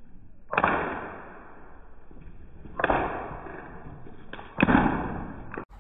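Three sudden loud noise bursts about two seconds apart, each dying away over a second or so, from sound effects laid over the coconut throw; the sound cuts off abruptly just before the end.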